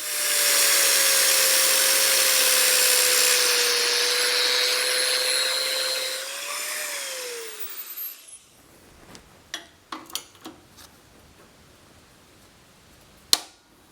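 Electric power tool running at full speed on steel for about six seconds, then its motor winding down after it is switched off. Scattered light knocks follow, and one sharp click near the end.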